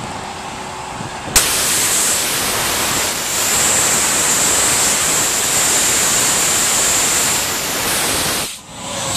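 Compressed air from a VMAC VR70 rotary screw underhood air compressor blasting out of the hose reel's opened valve: a sudden loud hiss with a high whistle, starting about a second and a half in over the steady hum of the running compressor. It dips briefly near the end, then comes back.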